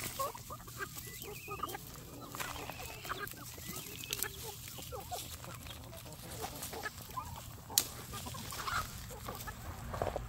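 Flock of free-range chickens clucking, many short calls overlapping, with one sharp click about three-quarters of the way through.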